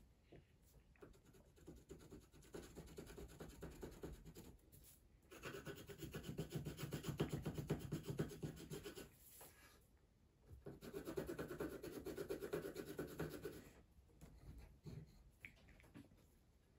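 A yellow coloured pencil shading back and forth on paper in fast, dense strokes, colouring in a drawing. It is softer at first, then comes in two louder spells of scribbling, about five seconds in and again about eleven seconds in, with a short pause between them.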